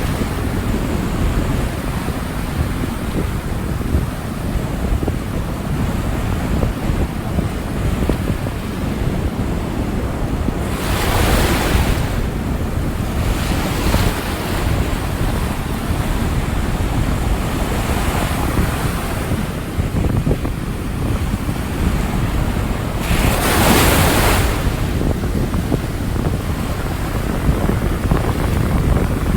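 Rough ocean surf: a steady low rumble of breaking waves, with two louder crashes, about a third of the way in and again near the end, and weaker ones between. Wind buffets the microphone throughout.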